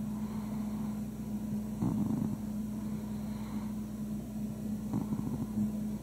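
A sleeping Russian Blue cat snoring softly: two short snores, about two seconds and about five seconds in, over a steady low hum.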